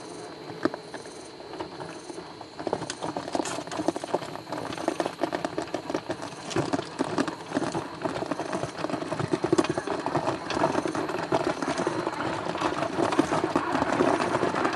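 Traxxas TRX-4 scale RC crawler climbing a rock ledge: a dense run of clicks and crunches from its tyres grinding over rock and loose stones, sparse at first and growing louder from about three seconds in.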